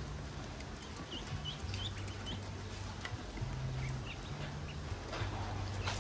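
Newly hatched ducklings peeping: short rising chirps, several a second, with a few clicks of bills pecking at feed in an aluminium basin. A low hum runs underneath, shifting in pitch.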